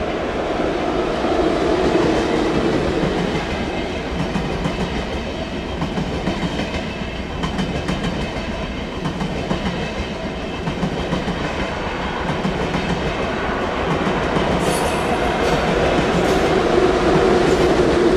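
A DB ICE train passing: a steady rumble of wheels on rail with a rhythmic clickety-clack, and a few sharp clicks near the end as the noise swells again.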